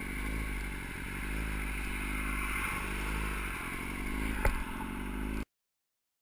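Motorcycle engine running at low speed, its pitch wavering up and down as the throttle changes. A single sharp knock sounds about four and a half seconds in, and a second later the sound cuts off abruptly into dead silence.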